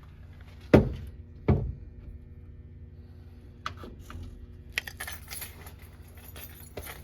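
Two sharp knocks about a second apart, followed by lighter clinks and rattles, over a steady low hum.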